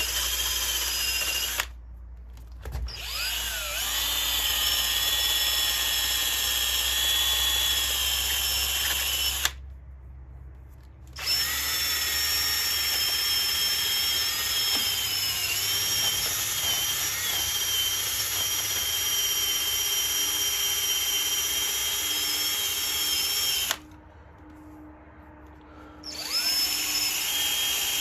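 High-speed electric power tool sanding a cured JB Weld patch on an ATV engine case, running with a steady high-pitched whine. It stops three times for a second or two and whines back up to speed each time.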